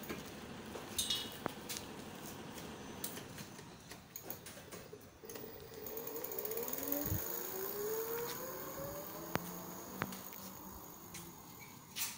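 Brushless hub motor (48 V, 250 W) of a fat-tire folding electric bicycle whining up in pitch as it speeds up under pedal assist, from about halfway through, then fading. Scattered clicks and knocks come before it.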